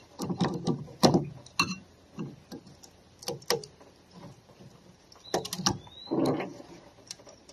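Irregular scraping, rubbing and clicking of a tool scratching the coating off a battery charger transformer's winding wire and handling the metal parts, with a brief rising squeak about five seconds in.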